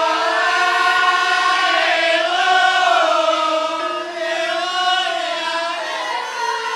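A high, wavering singing voice holding long, sliding notes over two steady, lower held tones.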